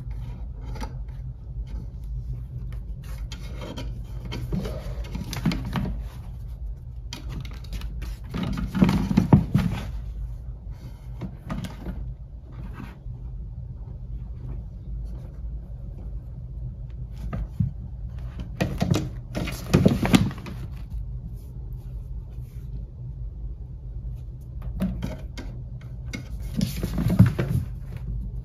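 A cat pawing and batting at a toy mouse on a hardwood floor: irregular scuffs, scrapes and knocks, with three louder flurries about nine, twenty and twenty-seven seconds in. A steady low hum runs underneath.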